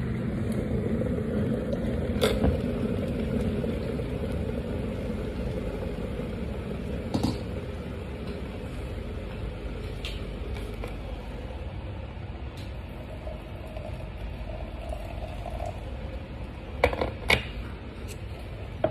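Steady low hum with a few light clicks and knocks, the loudest two close together near the end, as kitchenware is handled on a stone counter.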